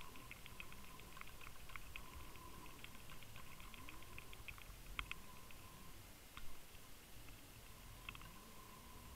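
Muffled underwater sound of a camera housing towed along a fishing line: faint, irregular clicking, busiest in the first few seconds, over a faint steady whine. There is a sharper click about five seconds in and a duller knock about a second and a half later.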